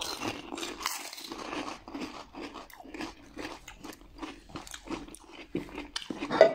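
Crisp, hollow pani puri shells crunching as they are cracked open and bitten and chewed, a quick run of crunches with a louder one near the end.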